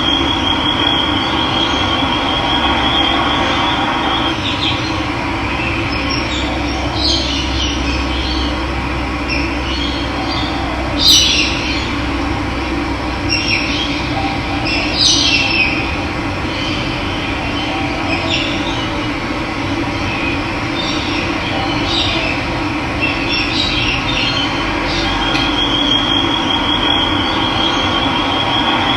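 Steady rush of running water, with birds chirping on and off over it and a high, steady trill at the start and again near the end.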